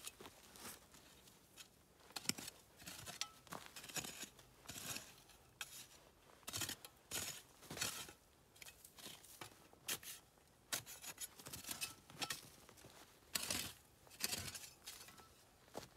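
Rustling and scraping of handwork, in short, uneven bursts with brief pauses.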